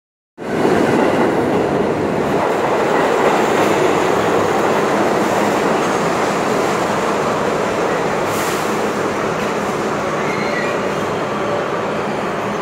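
Stainless-steel R32 subway cars pulling into a station, a loud steady rumble and rattle of wheels and cars rolling past that eases slightly as the train slows nearly to a stop. There is a brief high hiss about eight seconds in.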